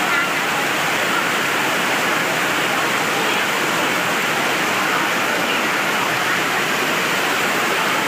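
Heavy rain pouring down in a steady, even hiss.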